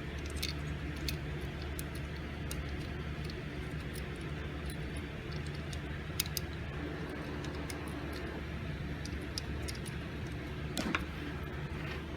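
Scattered light metallic clicks and ticks of a gumball machine coin mechanism's small metal parts being handled as the long screw is fitted through the washer and wheel, over a steady low hum.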